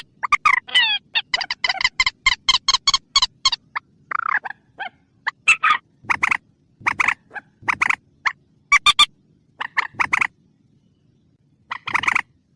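Recorded lure call of a mandar, a rail-family marsh bird: a fast run of sharp, repeated clucking notes, then separate short clusters of calls about once a second, with a brief pause near the end. A faint steady low hum runs under the calls.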